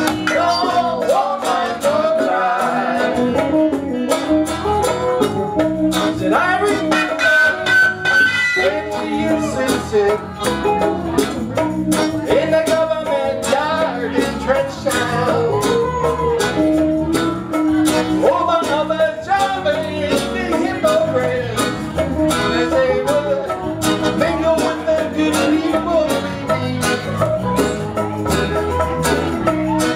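Live band music with singing: acoustic guitar, saxophone and voices over a steady percussive beat.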